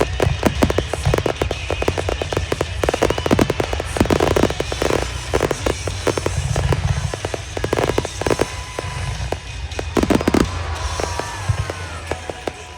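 Fireworks bursting and crackling in quick, dense succession over music played for a fireworks show set to music. The bursts thin out near the end while the music carries on.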